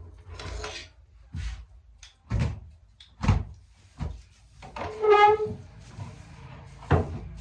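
Household things being knocked and moved about while a room is tidied: about six separate wooden-sounding knocks and bumps, with a short squeak about five seconds in.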